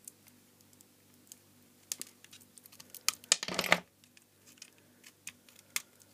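Electrical snips (side cutters) clicking and crunching as they cut and crack apart a small switchmode transformer: scattered sharp clicks, a short crunching snap a little past halfway, then a few light clicks near the end.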